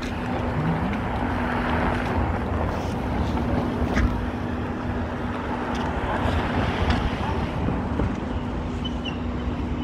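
City street ambience: a steady rush of traffic noise with wind buffeting the microphone and a steady low hum underneath. A sharp knock sounds about four seconds in.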